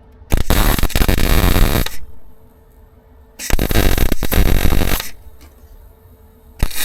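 Electric welding arc crackling in three short runs of about a second and a half each, stopping and restarting between them, as a patch panel is stitch-welded onto a car's chassis outrigger. A faint steady hum sits between the runs.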